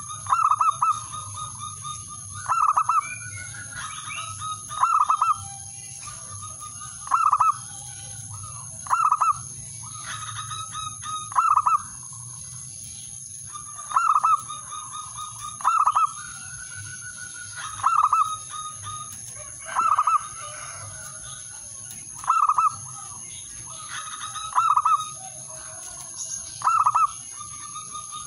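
Male zebra dove singing: a repeated cooing phrase of soft, rapid trilled notes leading into a louder coo, about every two seconds. This is the male's territorial call to a rival.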